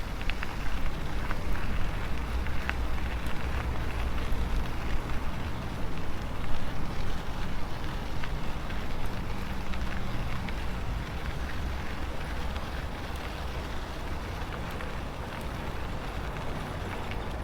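Wind rushing over a foam-covered lapel microphone on a moving e-bike, a low, uneven rushing with a crackle over it and a few faint clicks.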